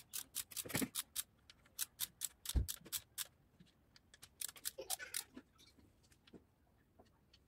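Ratchet wrench clicking in quick irregular runs as a bolt at the front of a bare engine block is worked, with a dull knock about two and a half seconds in; the clicking thins out over the last few seconds.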